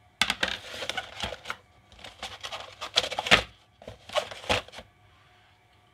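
Insulated screwdrivers and their plastic holder tray being handled: clicking and rattling in three bursts that stop about five seconds in.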